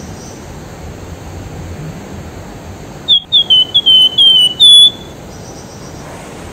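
A caged wergan jawa sings a quick run of about eight short, high, down-slurred whistles about three seconds in, ending on a longer, loudest note: a call to the opposite sex. The steady rush of a river runs underneath.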